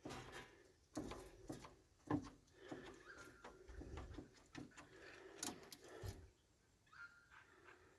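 Quiet clicks and knocks of a payphone handset and keypad being handled as a number is dialled, with a few faint short beeps.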